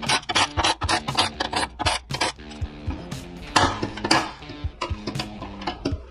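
Background music plays under irregular light metallic clinks as the screws and the old fuel cap are handled on a metal fuel tank.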